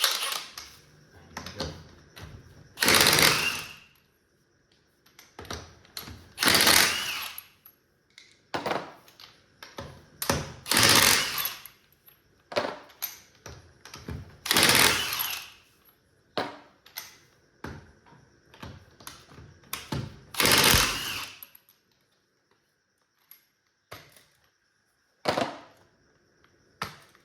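Ryobi cordless impact wrench (rattle gun) hammering in short bursts of about a second each, undoing the front wheel nuts. There are about six loud bursts, with quieter clinks and knocks between them.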